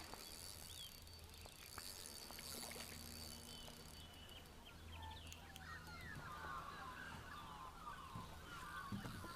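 Australian magpies warbling faintly, a run of curling, gliding notes that grows stronger in the second half, over a low steady hum.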